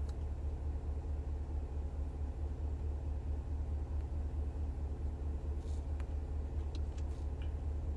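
Steady low rumble and hum, even throughout, with no speech.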